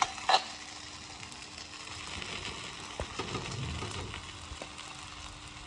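Faint sizzling of a spice-and-onion base frying in a pan, with a utensil knocking against the pan a few times and stirring as mashed potatoes go in.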